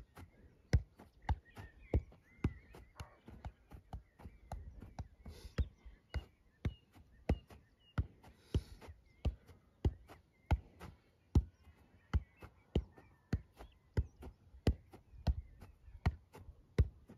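A football being juggled on the foot: a steady run of sharp thuds, about two touches a second, as the ball is kicked back up again and again.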